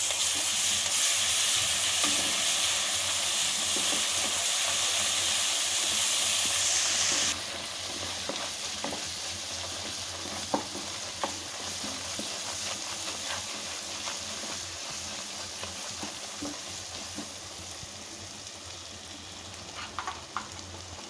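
Ginger-garlic paste and fried onions sizzling in hot oil in a pan while being stirred with a spatula. The sizzle is loud for about the first seven seconds, then drops suddenly to a quieter frying with scattered taps of the spatula.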